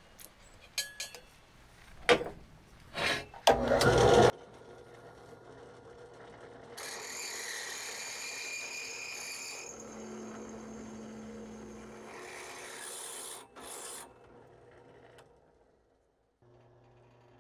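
Benchtop drill press drilling holes in steel tube. A few knocks and clanks of metal come first, the loudest about four seconds in, then the motor runs while the bit cuts into the steel, with the cutting noise loudest in the middle stretch.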